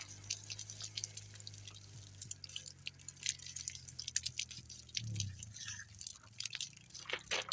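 Water dripping and splattering in quick, irregular drops as hands are rinsed off with a small hand sprayer, over a faint steady low hum.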